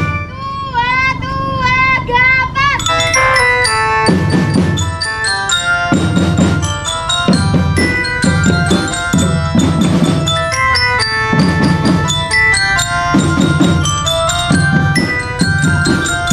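Children's marching drum band playing a tune: bell-lyra glockenspiels carry the melody in quick ringing notes over snare and bass drums, the drumming growing heavier about four seconds in.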